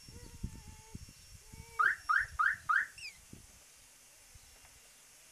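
Car alarm siren on a VAZ-2109 chirping four times in quick succession about two seconds in, each chirp a short falling tone, signalling a command sent from the alarm's key fob. Before the chirps, a faint steady whine.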